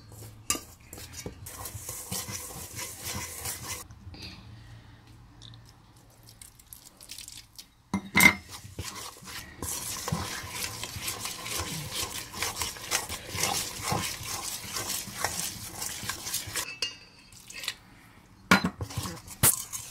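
Spiced flour batter being stirred and scraped in a stainless steel bowl, mixed with water into a thick paste, with rapid scraping and clinking against the metal. A single sharp knock comes about eight seconds in, then the stirring thickens.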